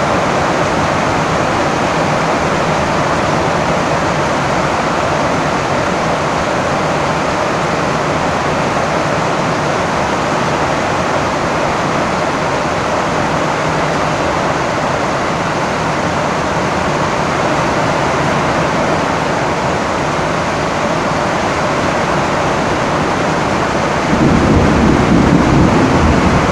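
Rain falling steadily on a tin roof, a dense, even hiss. A low rumble of thunder comes up near the end.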